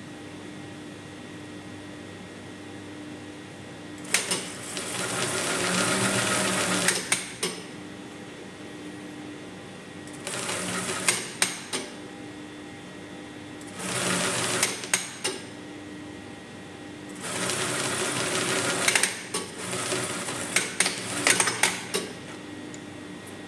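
Brother single-needle industrial sewing machine stitching in five short runs of one to three seconds each, with pauses between, and sharp clicks around the end of each run. A faint steady hum runs underneath.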